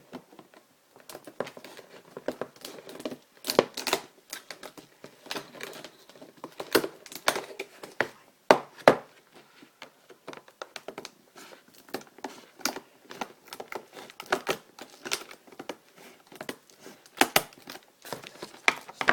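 Headset packaging being handled and opened by hand: irregular crinkling and tearing with many sharp clicks and snaps.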